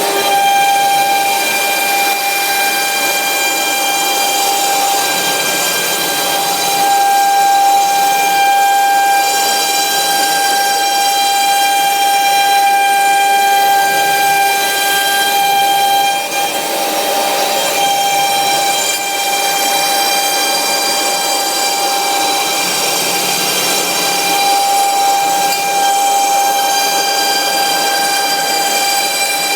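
CNC router spindle at 24,000 rpm driving a 6 mm end mill through 19 mm MDF: a steady high-pitched whine over a hiss, the whine fading and returning a few times as the cut goes on.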